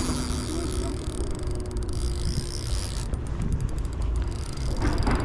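Spinning reel ticking in fast, even clicks, in two spells, as a hooked steelhead is played, over a steady low rumble.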